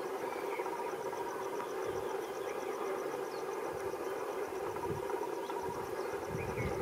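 EMD WDP 4B diesel locomotive approaching from a distance, heard as a steady low drone, with low rumbles growing near the end. An insect chirps high up in a fast, even pulse over it.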